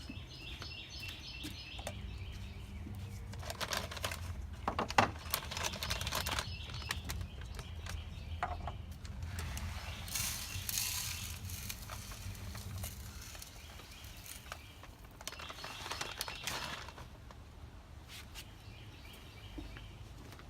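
Small birds chirping over a steady low hum, with several stretches of clicking, clattering and rustling as the plexiglass feeder is handled and filled with birdseed.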